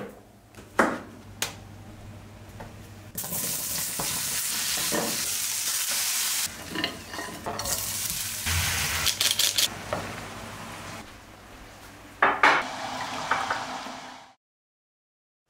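Chopped onions sizzling in oil in a frying pan, with knocks and clatter of pans and utensils. A few sharp knocks come at the start, and a burst of clatter comes near the end.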